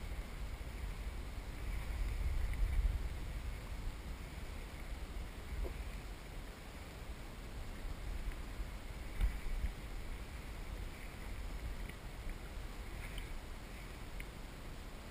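Low, gusty wind rumble on the microphone and water sloshing around a kayak, with a few faint clicks.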